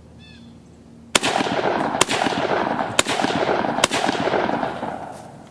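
Four single shots from a 5.56 mm ACR rifle, about a second apart, starting about a second in, each followed by a long rolling echo that fades out near the end.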